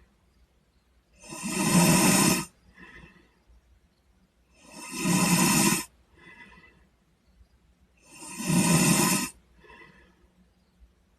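A sleeping boy snoring: three loud snores about three and a half seconds apart, each about a second long and followed by a softer breath.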